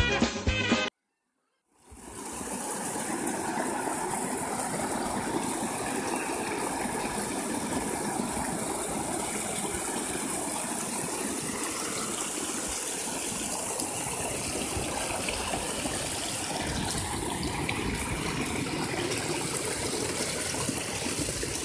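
Steady rush of a small mountain stream cascading over rocks, fading in after a brief silence. Music cuts off about a second in.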